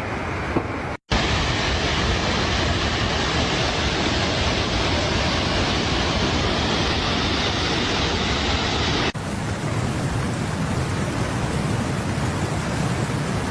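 Steady, dense rushing hiss of a heavy downpour, with a brief dropout about a second in and an abrupt cut to a similar rain sound about nine seconds in.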